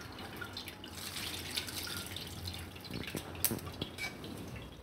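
Water dripping and trickling from blanched spinach in a stainless-steel mesh strainer, just doused with cold water to cool it, with a few faint ticks in the second half.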